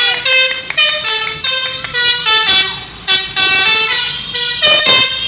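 Telolet horn, a multi-trumpet musical horn, playing a quick melody of short held notes that jump from pitch to pitch, with a brief break about three seconds in.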